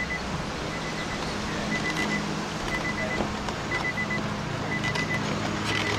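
A steady low hum, with a faint high electronic beep sounding in short groups about once a second, and light handling noises from a wiring connector being worked inside the car door.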